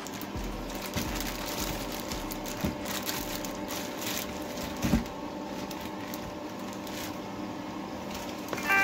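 Plastic packaging bag crinkling and cardboard box rustling as a bagged item is pulled out of a shipping box, in irregular crackles with a few louder ones.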